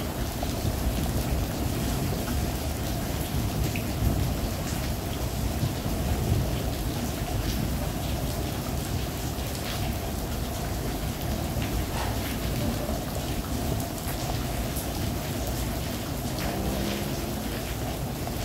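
Steady rain falling, with scattered drops ticking on a nearby surface and a continuous low rumble underneath.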